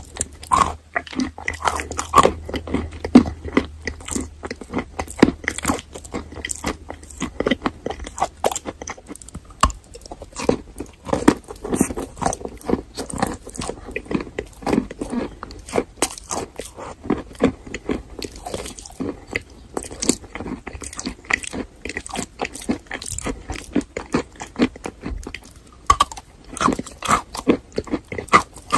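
Close-up biting and chewing of chalk with a paste: a dense, irregular run of crunches and crackles, with some creamier, softer chewing between the louder bites.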